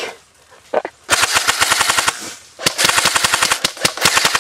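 Airsoft rifle firing on full auto close by, a rapid clatter of shots at about fifteen a second. One burst starts about a second in, another just before three seconds, and it breaks into shorter bursts near the end.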